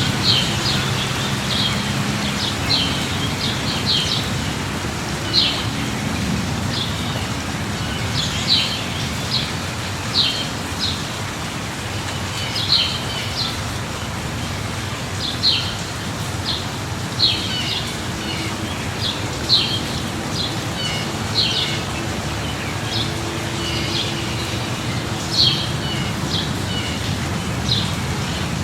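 Steady light rain with a low rumble underneath, and a bird chirping over it, short high calls repeating every second or two.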